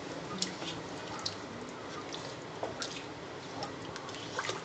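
Wooden spatula stirring chicken curry in coconut-milk gravy in a pan: wet squishing with scattered light clicks of the spatula against the pan.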